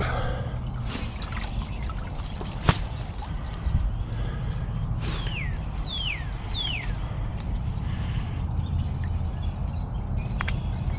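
Wet mud and water being stirred by hands working among the sticks at the base of a beaver lodge, with a sharp snap a little under three seconds in. Around the middle, a bird calls three quick whistled notes, each falling in pitch.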